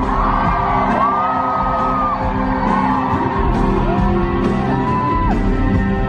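Live rock band playing in a large hall, recorded from the crowd: steady sustained low tones with electric guitar, and a few long, high held whoops from the audience rising over the music.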